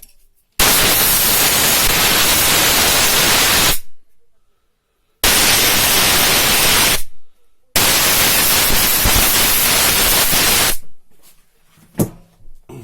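Three loud bursts of compressed air blowing out freshly solvent-washed Bosch common rail injector parts, each cutting in and off sharply, the first and last about three seconds long and the middle one about two. A short knock comes near the end.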